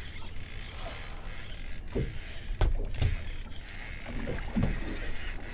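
Fishing reel being wound in as a hooked fish is brought up to the boat, its gears clicking steadily, with a few sharp knocks.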